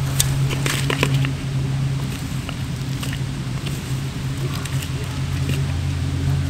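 A shovel scrapes and scoops soil and dry leaf litter, then hands gather the crackly leaf mulch, giving scattered crunches and clicks that are densest in the first second or so. Under it runs a steady low engine hum.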